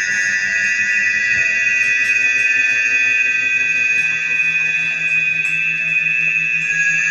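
A sustained high-pitched drone made of several steady tones held together without change, with a low hum joining about four seconds in.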